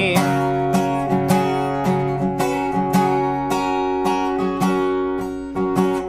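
Acoustic guitar strummed in a steady rhythm, chords ringing, as a short instrumental stretch between sung lines.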